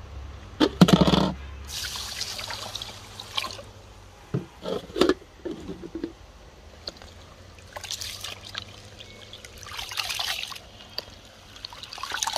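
Water pouring and trickling into a plastic basin of raw rice, with the rice sloshed and rubbed by hand in the water to wash it.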